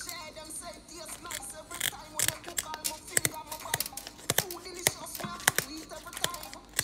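Kitchen scissors snipping through the fins of a whole raw fish in a series of sharp cuts, over background music.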